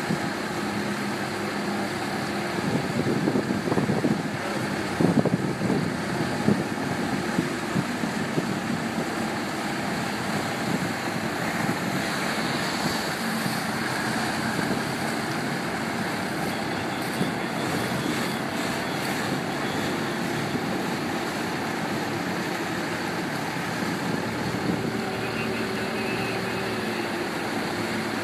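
Water taxi's motorboat engine running steadily under a rush of water, with a patch of louder irregular knocks or splashes about three to six seconds in.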